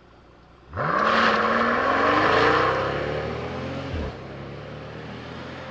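Mercedes S65 AMG twin-turbo V12 engine coming in suddenly just under a second in, its note rising steadily in pitch as the car accelerates. About four seconds in there is a short break in the note, then a steadier, quieter engine drone.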